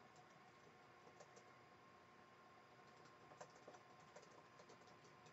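Near silence: faint room tone with scattered soft clicks, a few more of them from about three seconds in.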